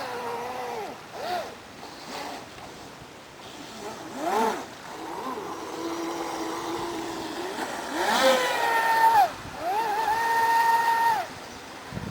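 Brushless electric motor of an RC boat on a 6S LiPo, spinning a small 40 mm prop, whining through throttle blips: short rises and falls in pitch, a spell held at a low pitch, then two high-pitched full-throttle runs of about a second each near the end that drop away quickly.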